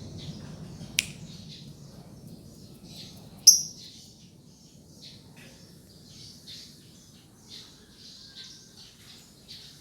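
Lovebird chattering in a rapid run of high chirps, broken by two sharp, loud shrieks about a second and three and a half seconds in.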